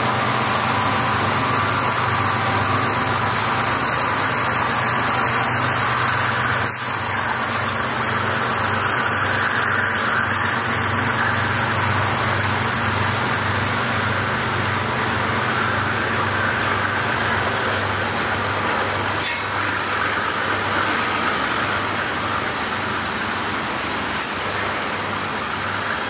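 Freight cars of a mixed train (covered hoppers, an autorack, boxcars) rolling past: a steady rumble and rattle of steel wheels on rail with a regular beat, and a few sharp clicks.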